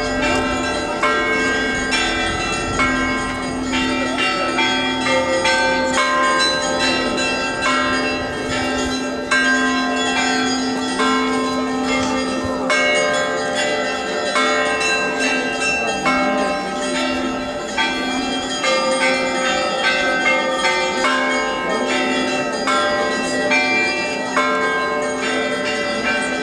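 Russian church bells rung together, many higher bells struck in quick succession and left to ring over the steady tone of a low bell.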